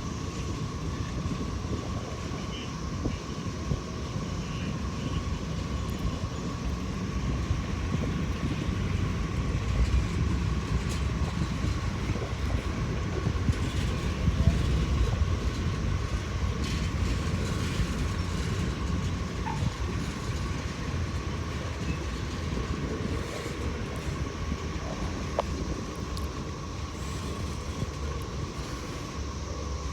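CSX freight train led by a GE ES44AH diesel locomotive rolling into a rail yard, a steady low rumble that swells around the middle, with cicadas droning steadily in the distance.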